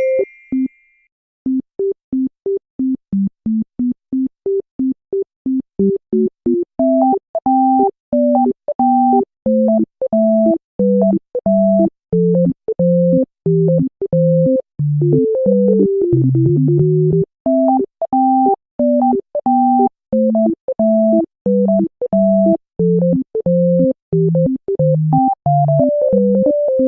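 Background music: a synthesizer keyboard tune in short, detached notes over a bass line, at a steady pace.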